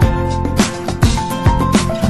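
Upbeat background music with a steady drum beat and plucked guitar-like melody.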